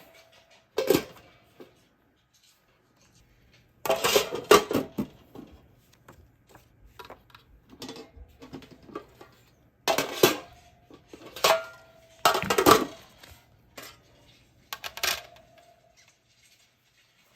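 Stainless steel trays clattering and clinking as they are handled and set down, in several short bursts, some leaving a brief metallic ring.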